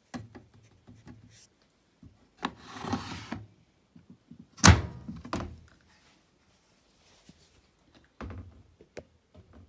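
A front-loading washing machine being handled: light clicks and a brief rustle, then one loud thunk about halfway through and a smaller thump near the end.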